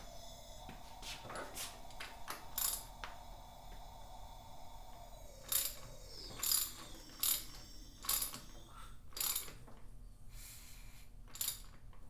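A socket ratchet wrench clicks as it turns the crankshaft of a Honda CB550 four-cylinder engine by hand to find top dead center for a leak-down test. The clicks are faint at first, then about seven louder ones come roughly a second apart in the second half. A faint steady whine fades out about halfway.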